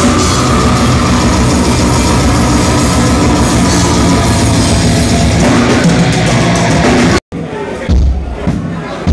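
Heavy metal band playing live and loud, with distorted electric guitars, bass and drums. It cuts off abruptly about seven seconds in, followed by a single heavy bass drum thump.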